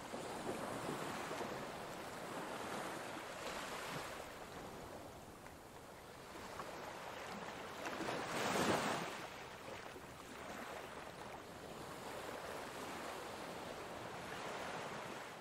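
Steady rushing of sea water and wind on the microphone from a moving boat, with no engine tone standing out; the rush swells to its loudest about eight and a half seconds in.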